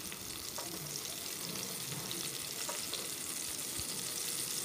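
Masala-stuffed brinjals sizzling steadily in hot mustard oil in a kadhai as pieces are laid in, with a few faint clicks.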